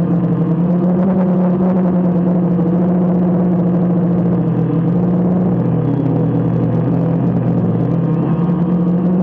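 DJI Phantom quadcopter's motors and propellers humming steadily, heard loud and close from on board. The pitch sags slightly in the second half as the motors change speed, then comes back up near the end.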